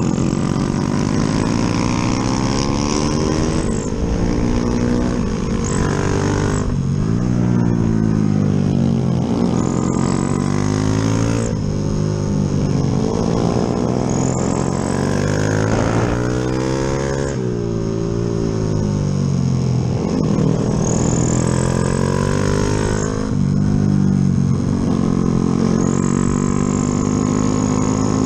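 Bored-out Yamaha Jupiter MX single-cylinder four-stroke engine with a 72 mm piston, under way. The revs climb and fall back again and again as the rider accelerates, shifts and rolls off, over a steady rumble of wind on the microphone.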